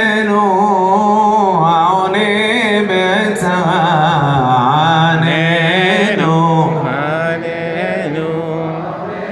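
A man's voice chanting a slow, ornamented melody with a wavering vibrato, a little softer in the last couple of seconds.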